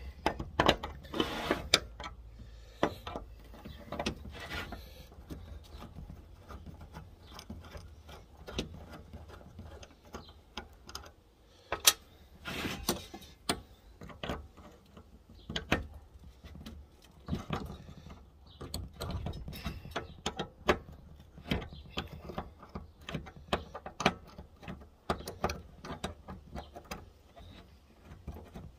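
Socket ratchet clicking in short runs, with clinks of metal tools and parts, as a 13 mm fixing on an old carburettor is undone. The clicks come irregularly, in bunches, with the busiest rattles about a second in and again near the middle.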